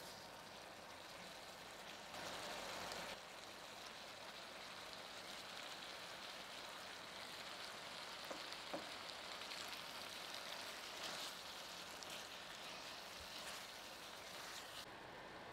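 Fettuccine in coconut-milk lodeh sauce simmering in a pan with a steady soft hiss. There is a louder stretch about two seconds in and a couple of light clicks a little past the middle.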